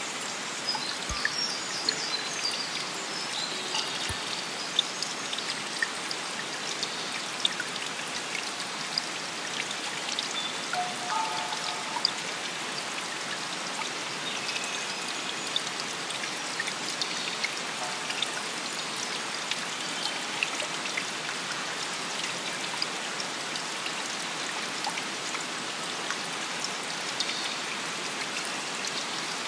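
Running water trickling and splashing steadily, with many sharp drops falling and pattering throughout.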